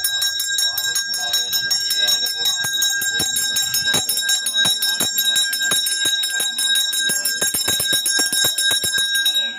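Brass temple hand bell (ghanta) rung rapidly and without a break during an aarti lamp offering, a bright steady ringing that stops suddenly.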